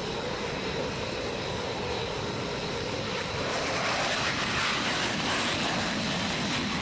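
Fighter jet's turbofan engines running at taxi power: a steady rushing noise with a faint high whine, growing louder and brighter about three and a half seconds in as the jet moves past.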